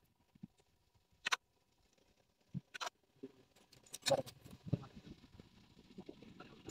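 Scattered small clicks and knocks of hand work on metal parts and tools, with two sharper clicks about a second and three seconds in and a busier run of small knocks and thumps around four to five seconds in.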